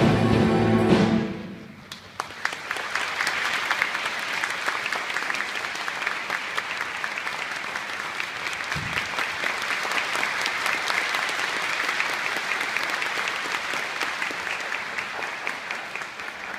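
A wind band's loud final chord, with drums, sounds for about a second and then cuts off. An audience then breaks into steady applause that goes on, easing slightly near the end.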